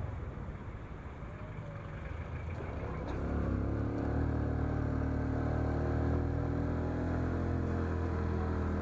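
Honda XRM 125 Fi's single-cylinder four-stroke engine pulling the motorcycle uphill under load, heard from on board. About three seconds in the engine note grows louder and then holds steady.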